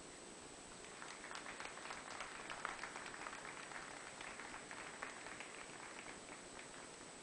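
Audience applauding, starting about a second in, at its fullest a little later and thinning out near the end.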